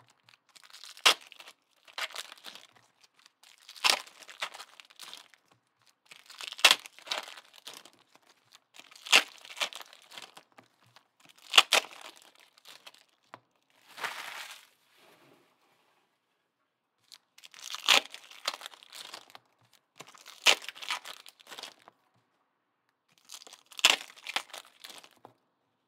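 Paper and foil card packaging crinkling and tearing in about ten short bursts, each a second or so long and spaced a couple of seconds apart, as trading-card packs are handled and stacked.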